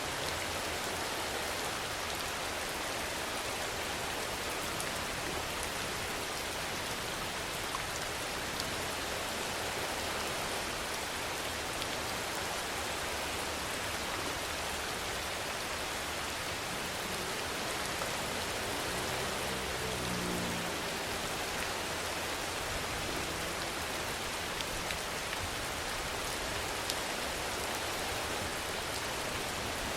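Steady rainfall, an even hiss with scattered individual drops ticking on a surface.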